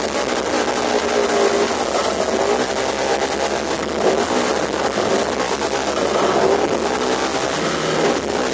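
Polaris RZR 900 Turbo UTV engine running hard under load, its pitch rising and falling repeatedly with the throttle.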